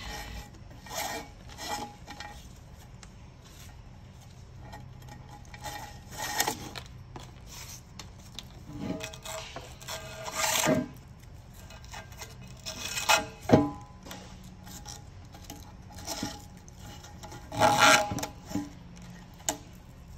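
Hook-and-loop battery tie-down strap being fed through the slots of an aluminium battery tray and doubled back over itself: irregular rubbing and scraping of the strap, with light knocks of strap and hands against the metal plate. Several louder scrapes come at uneven intervals.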